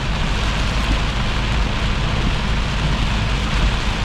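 Heavy rain falling on a semi-truck's cab as a steady, even hiss, with the truck's low, steady rumble underneath.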